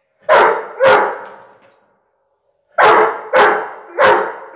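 A dog barking on command to count out the number ten: two barks, a pause of nearly two seconds, then a run of three evenly spaced barks a little over half a second apart.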